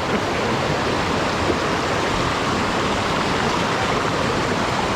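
Water of a small waterfall rushing, a steady noise.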